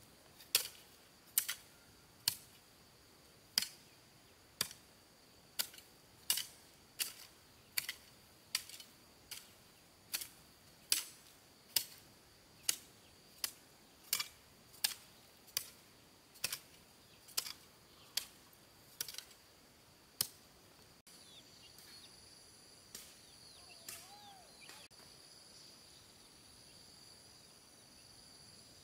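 More than two dozen sharp strikes in an even rhythm, about one every three-quarters of a second, over a steady high drone of insects. The strikes stop about 21 seconds in, leaving the insects and one short chirp.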